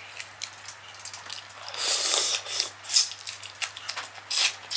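Close-miked sounds of shell-on shrimp coated in wet Cajun sauce being peeled and pulled apart by hand, with wet crackling of the shell. A longer rustling stretch comes about two seconds in, and a few sharp clicks follow near the end.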